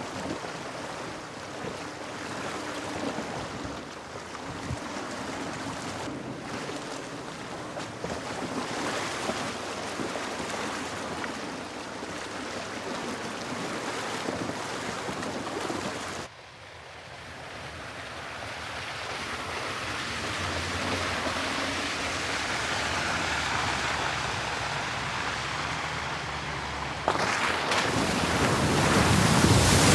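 Water rushing and splashing as a Land Rover Defender fords a stream. The sound drops off suddenly a little past halfway, then swells steadily. About three seconds before the end a louder, deeper rush of water comes in as the vehicle ploughs through a flooded ford.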